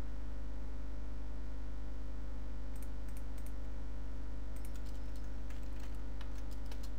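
Computer keyboard keys tapped in two short runs, one about three seconds in and another from about four and a half seconds to near the end, over a steady low electrical hum.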